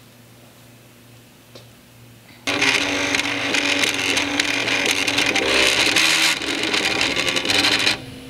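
Weistek WAY 3D printer printing: its stepper motors whir and buzz in shifting tones as the print head and platform move. The sound starts abruptly about two and a half seconds in, after a quiet stretch with a couple of faint clicks.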